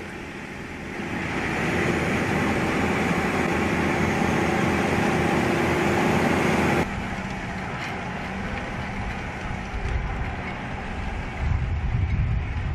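A heavy machine's engine running steadily. About seven seconds in, the sound switches abruptly to a quieter engine sound that sits lower.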